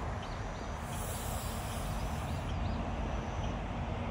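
Outdoor morning ambience: a steady low rumble and hiss, with a run of short high chirps repeating about three times a second that stops nearly three seconds in. A brief high hiss comes about a second in.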